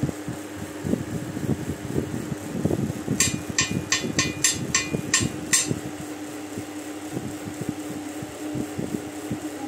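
A quick run of about eight ringing metallic clinks, a few seconds in, as something small and metal is tapped repeatedly against metal. Around them are soft low knocks and a steady hum.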